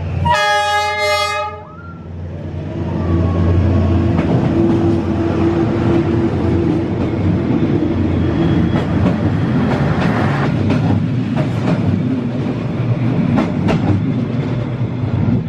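Diesel passenger train on street-running track: the locomotive sounds one horn blast of about a second and a half at the start, then the locomotive and its carriages rumble past at very close range, with wheels clacking over the rail joints through the second half.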